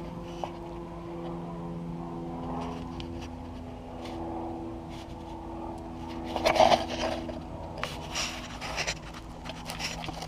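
Polaris Sportsman 500 ATV running steadily, with a loud burst of grinding clatter about six seconds in and more irregular clatter after it. This is the transmission's stretched drive chain skipping over the gear teeth under load.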